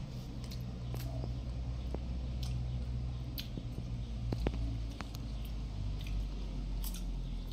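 Eating sounds: wet chewing and squishing of orange segments and fruit being handled, with scattered light clicks, over a steady low hum.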